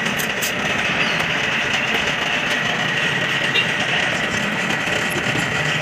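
An engine running steadily at idle, with a thin steady high tone above it.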